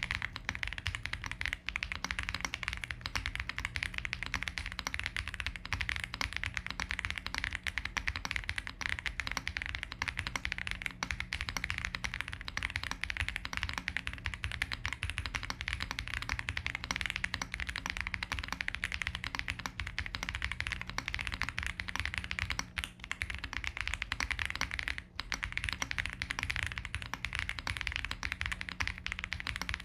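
Fast, continuous typing on an Owlab Mr. Suit R1 custom mechanical keyboard with lubed Gazzew Boba U4T tactile switches in a polycarbonate plate, foam-dampened, under GMK keycaps. The typing starts at once and breaks briefly twice near the end.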